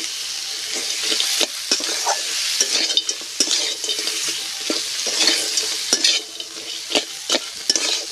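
Crab pieces sizzling as they fry in oil and spice paste in a metal kadai, with a metal spatula stirring them and scraping against the pan in repeated strokes.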